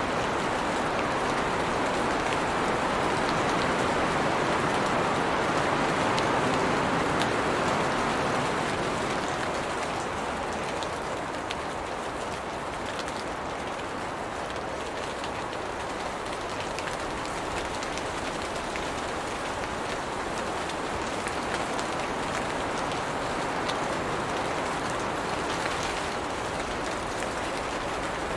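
Steady rain falling on the leaves of a tree: an even hiss with scattered crisp drop taps. It is a little heavier over the first eight seconds or so, then eases slightly.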